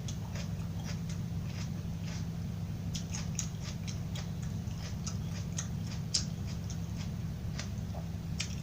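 Close-miked chewing of a raw vegetable with cheese sauce: irregular, crisp crunches, a few each second, over a steady low hum.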